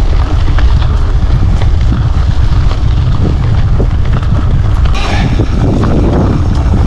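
Mountain bike riding over a stony trail, its tyres and frame clattering with irregular knocks over the rocks, under a constant rumble of wind on the chest-mounted camera's microphone.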